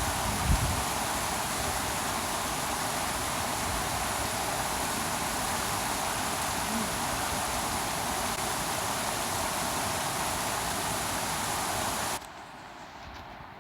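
Steady rush of flowing water, an even hiss with no rhythm. It cuts off abruptly about twelve seconds in, leaving a much quieter background.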